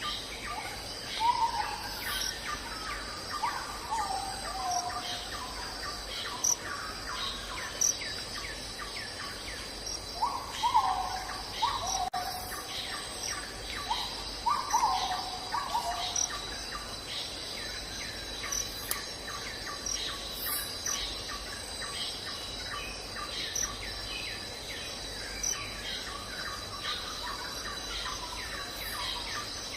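Forest insects trilling in a steady, high-pitched drone, with many short chirps throughout. Several groups of short calls, each falling in pitch, come in the first half.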